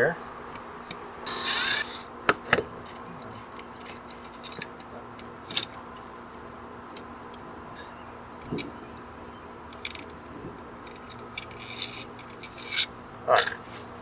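Hand screwdriver backing the mounting screws out of a GFCI outlet, and the outlet being pulled out of its box: scattered small metal clicks and scrapes, with a short rattle about a second in.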